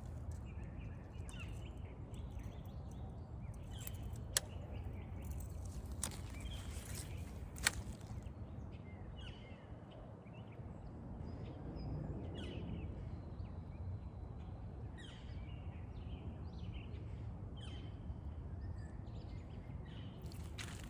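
Outdoor ambience: a steady low rumble with scattered short bird chirps, and two sharp clicks, one about 4 seconds in and one about 8 seconds in.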